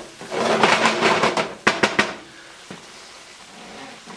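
Wooden spoon stirring a thick roux with sautéed vegetables in a nonstick frying pan, scraping across the pan for about two seconds and ending with two sharp knocks of the spoon on the pan. After that the roux sizzles faintly as it cooks.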